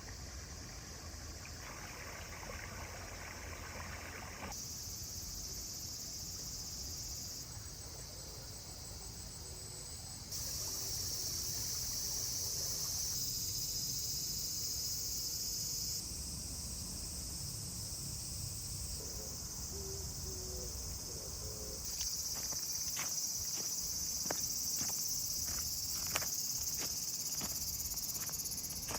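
Steady high-pitched insect chorus, its level jumping abruptly every few seconds, over a low rumble, with a scatter of sharp clicks in the last several seconds.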